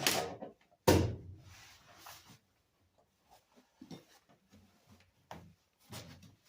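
Two sharp knocks about a second apart, the second the loudest, then a few faint clicks and taps: a car door panel being pushed and struck to seat its retaining pins in the holes in the door.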